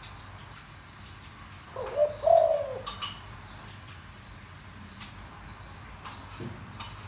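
Spotted dove giving one deep cooing phrase about two seconds in, a few notes rising and falling over about a second. Faint high chirps and light clicks sound around it.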